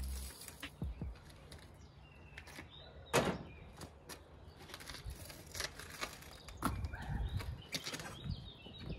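A low machine hum cuts off just after the start. Then come scattered clicks and knocks from wheels and an air hose being handled, with one louder short burst about three seconds in. Birds chirp faintly in the background.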